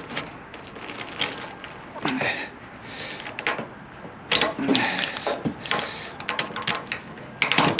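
Blade cutting through a rubber garden hose: irregular scraping, crackling strokes as the knife saws through the hose.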